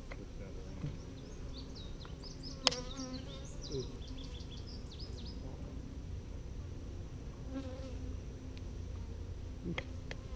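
Honeybees buzzing around an opened hive: a steady low hum. A sharp click comes about three seconds in.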